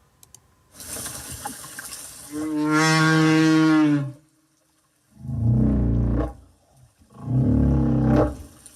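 A whale calling in the air at the water's surface: first a breathy blast, then one long, steady, pitched call, then two shorter, deeper calls.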